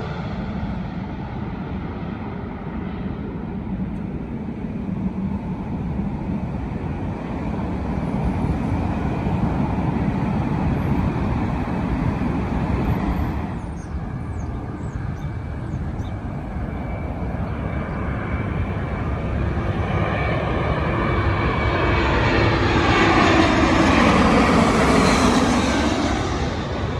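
Jet airliner on landing approach passing overhead: a low engine rumble that swells about two-thirds of the way through, is loudest shortly before the end with sweeping shifts in pitch as it goes by, then begins to fade.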